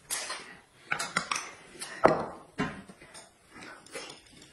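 Eating at the table: spoons clicking and scraping against a small bowl and a paper noodle cup, with mouth sounds of eating in between. There are about eight short, sharp clicks, irregularly spaced.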